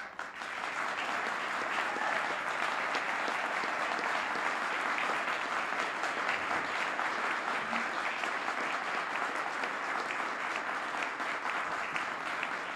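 Audience applauding: many people clapping at once, rising quickly to a steady level.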